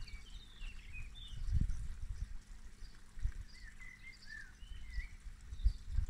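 Small birds chirping in short, gliding notes, with irregular gusts of wind rumbling on the microphone, the strongest about one and a half seconds in.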